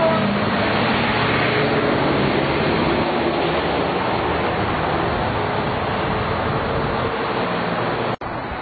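Road traffic passing close by on a busy street, a tractor-trailer truck among it: steady engine and tyre noise, breaking off for an instant near the end.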